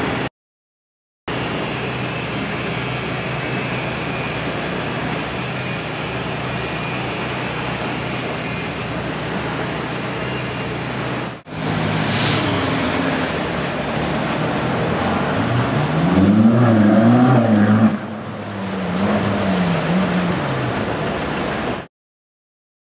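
Ferrari 458 Speciale's V8 idling steadily, then pulling away with the revs rising and falling twice, over street traffic noise. The sound stops abruptly near the end.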